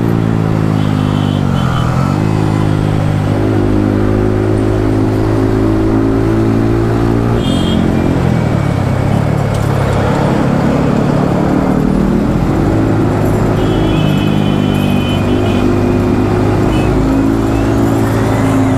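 Yamaha MT-15's 155 cc single-cylinder engine with an Akrapovic exhaust, riding at steady speed. The revs dip and climb back about two seconds in, break off around eight seconds in, then settle to a steady cruise, with wind noise underneath.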